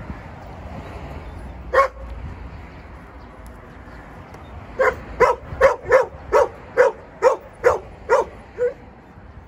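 Dog barking: a single bark about two seconds in, then a quick run of about ten barks over some four seconds, roughly two and a half a second.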